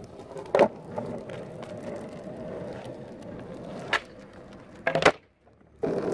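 Longboard wheels rolling on asphalt, broken by sharp clacks of the board striking the ground about half a second in, near four seconds and around five seconds. A brief silence follows, then the rolling starts again.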